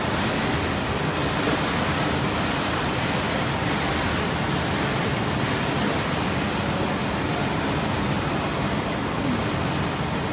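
Four-layer bubble wrap insulation film machine running: a steady, even rush of machine noise with a faint, thin, high whine.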